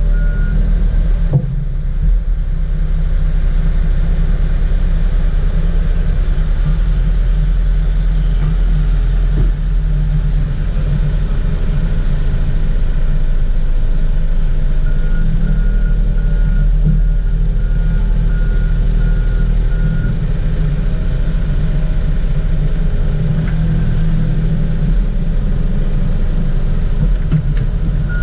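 Komatsu PC70 excavator's diesel engine running steadily as the machine tracks along, with its travel alarm beeping about twice a second at the start and again for several seconds about halfway through.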